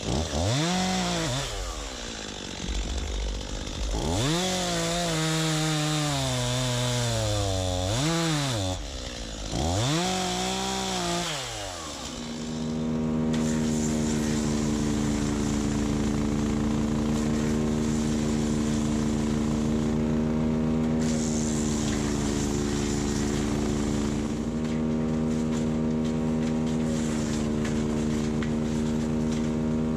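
STIHL MS251 C two-stroke chainsaw cutting through logs: its pitch drops as the chain bogs down in the wood and climbs back between cuts, about three times. About twelve seconds in it gives way to a steady engine running at one constant pitch.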